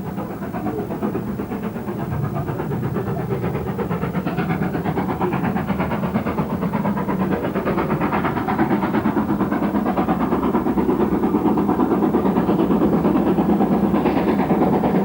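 Great Western Hall-class two-cylinder 4-6-0 steam locomotive working a train, its exhaust beating in a fast, even rhythm with steam hiss. It grows gradually louder as it approaches.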